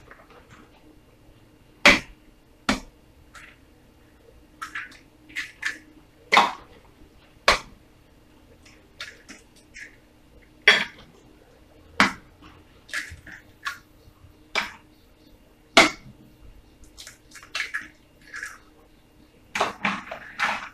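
Eggs being cracked against the rim of a plastic blender jar and broken in: about eight sharp knocks spread out, with smaller clicks and crackles of shell between them.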